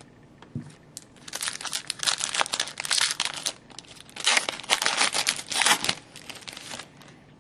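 Crinkly rustling of hockey trading cards and their plastic-foil packaging being handled, in two flurries a second or so apart.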